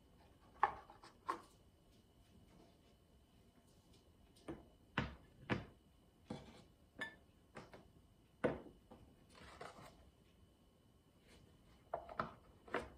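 Ceramic bowls, a plate and a small cup being set down and shifted on hard place mats on a wooden table: a dozen or so short knocks and clinks, with a brief sliding rub about two-thirds through.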